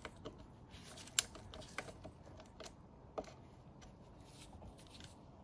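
A handful of faint, sharp metallic clicks and taps as a socket bit on a ratchet extension is fitted against the automatic gearbox's drain plug, the loudest about a second in.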